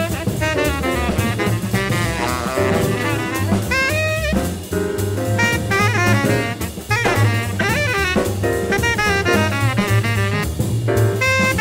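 Tenor saxophone improvising a jazz solo in fast, running bebop lines, over a swinging drum kit and a bass line stepping note by note.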